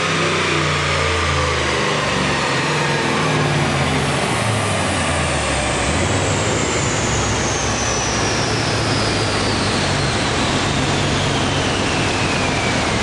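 Twin-turbo 6-litre Gen IV V8 of a Holden VE Commodore running on a chassis dyno. Its engine note steps down and fades in the first few seconds under a loud steady rushing noise. Through the rest, a high whine falls slowly in pitch.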